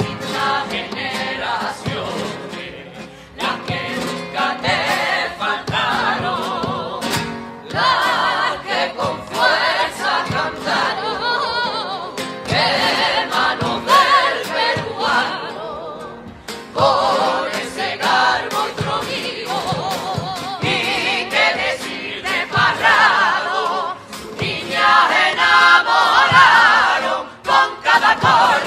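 A costumed carnival group of mostly women's voices singing a carnival song together into microphones, in phrases with short breaths between them.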